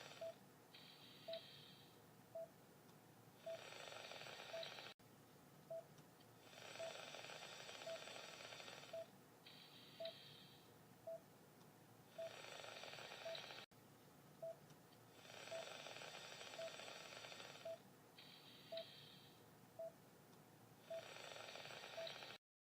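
Thalamic neuron activity picked up by a surgical microelectrode and played through an audio monitor: a faint hissing crackle that swells and fades in cycles of about four to five seconds. A short, even beep repeats a little more than once a second.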